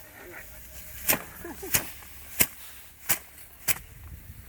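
Sheaves of harvested rice beaten against a threshing surface to knock the grain loose: five sharp whacks in a steady rhythm, about one every two-thirds of a second.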